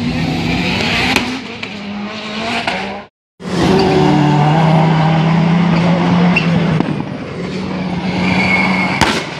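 Rallycross car engines running hard under race conditions, the engine note rising and falling. The sound cuts out completely for a moment about three seconds in, and then another car's engine is heard.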